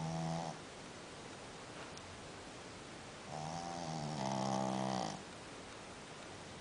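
Sleeping dog snoring, much like a human: one snore ends about half a second in, and a longer, louder snore in two parts starts about three seconds in and lasts nearly two seconds.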